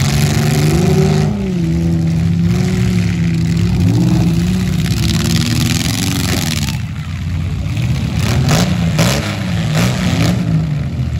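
Several demolition derby car engines revving, their pitch rising and falling and overlapping. A cluster of sharp bangs about eight to nine seconds in, from the cars colliding.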